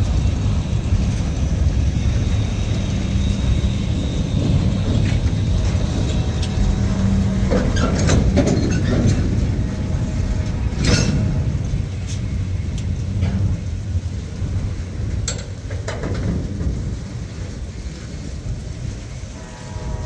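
Freight train boxcars rolling past on steel wheels: a steady low rumble on the rails, with a few sharp clicks and clanks now and then.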